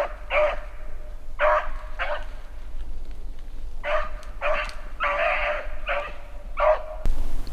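Beagle puppy baying: a string of short, high-pitched barks and bays, with one longer bay about five seconds in. The sound cuts off suddenly about seven seconds in.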